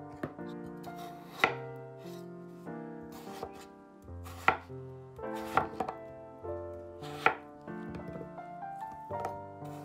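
Chef's knife cutting peeled raw potatoes into pieces on a wooden cutting board: a series of sharp, irregular knocks as the blade goes through and hits the board. Soft piano background music plays underneath.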